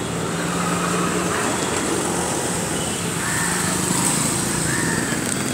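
A small motor-vehicle engine running steadily amid street traffic noise, with a low hum under a steady hiss.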